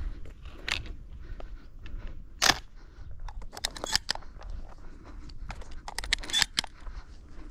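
Footsteps and rustling in dry grass with bumps and handling on the handheld camera: irregular crunches and clicks, a few sharper ones, over a low rumble of wind on the microphone.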